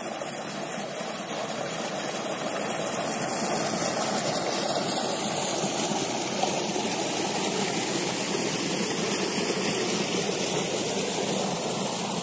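Water gushing steadily from a tubewell outlet pipe into a concrete tank and running off into an irrigation channel: a continuous, even rushing.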